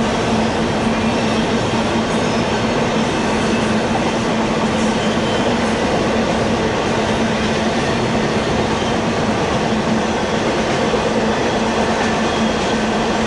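Double-stack intermodal freight train rolling past: a steady rumble of steel wheels on rail, with a steady low tone running through it.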